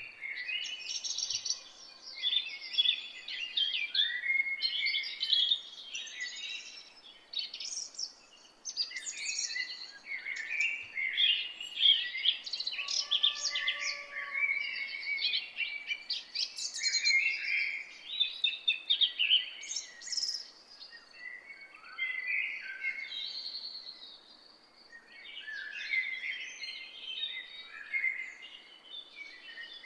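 Several songbirds singing and chirping at once, a dense, overlapping chorus of short trills and chirps, over a faint steady background hiss.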